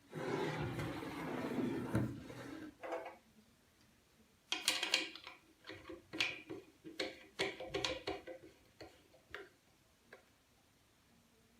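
A rushing noise lasting about two seconds, then a run of about ten irregular sharp clicks and light knocks.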